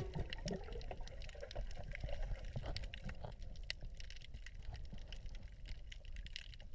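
Faint underwater ambience: a low rumble with many scattered small clicks and crackles.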